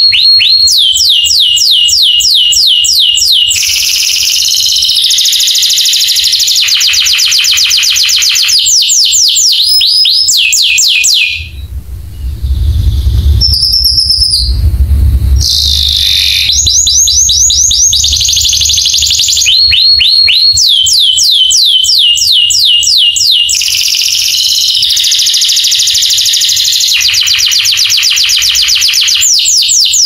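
Domestic canary singing: long, loud runs of fast repeated whistled notes, each sweeping downward, rolling from one trill into the next. About eleven seconds in, the song breaks for about four seconds, with a low rumble and a single short high note, then the trills resume.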